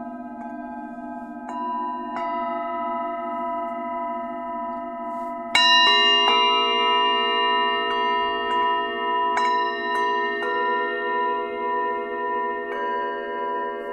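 Tibetan singing bowls struck one after another, about seven strikes, their long ringing tones overlapping over a low pulsing drone. The loudest strike comes about five and a half seconds in.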